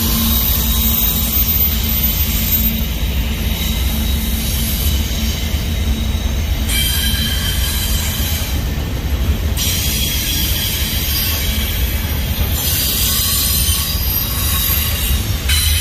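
Union Pacific intermodal freight train rolling past on the rails: a steady, loud deep rumble of double-stack container cars, with high-pitched wheel squeal that swells and fades in stretches of a few seconds.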